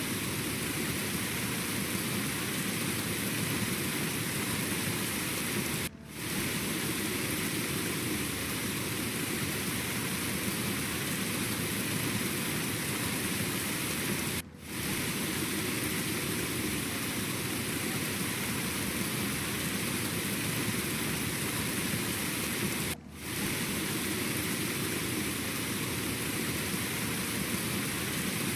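Steady rushing noise with no rhythm or pitch, like heavy rain, briefly dropping out three times about eight seconds apart.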